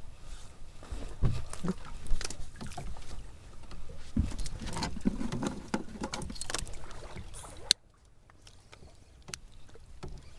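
Low rumbling wind-like noise with irregular knocks and clicks from handling gear on a small boat. It cuts off suddenly about three-quarters of the way through.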